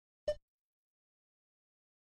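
Dead silence, broken once about a quarter second in by a single short pitched blip.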